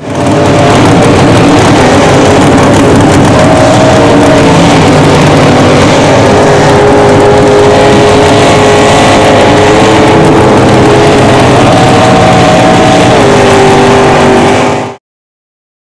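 Lifted mud truck's engine running at high revs as it plows through a mud pit, the engine pitch rising and falling over a loud, dense wash of noise. It cuts off abruptly near the end.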